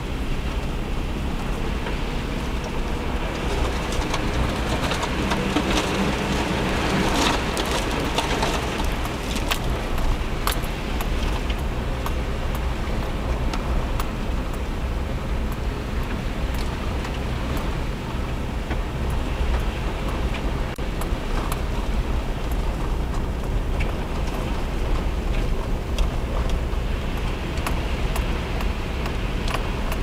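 Car driving slowly on slushy, snow-covered streets, heard from inside the cabin: a steady low engine and road rumble with tyre hiss, and scattered light clicks. The hiss swells for a few seconds about seven seconds in.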